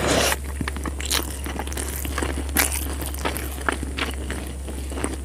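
Close-up mouth sounds of a person eating chicken biryani by hand. A loud wet burst comes as the handful of rice goes into the mouth, then chewing with many small irregular clicks.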